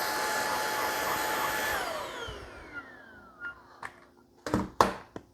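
Eufy HomeVac S11 Infinity cordless stick vacuum running with a steady high whine, then switched off about two seconds in and winding down with a falling pitch. A few sharp clicks and knocks follow near the end.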